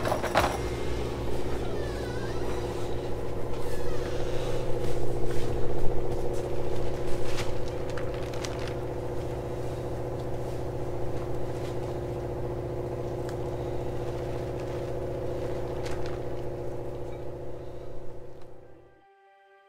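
A steady machine hum with several fixed pitches, with scattered clicks and small scrapes of a brush and a plastic paint tray being handled. The hum cuts off suddenly near the end.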